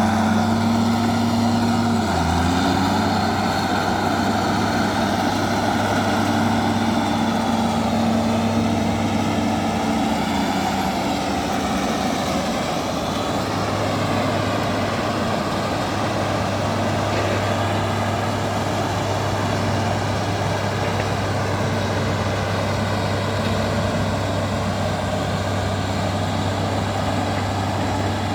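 Bulldozer's heavy diesel engine running steadily, its note dropping and shifting briefly about two seconds in.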